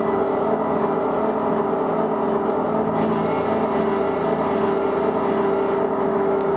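A steady, unchanging drone with a strong held tone, level throughout with no breaks or strikes.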